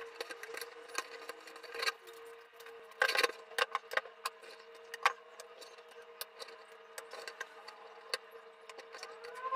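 A spoon scraping and knocking against a pot and bowl as thick flour paste is scooped out, giving irregular clicks with a cluster of louder knocks about three seconds in, over a steady hum.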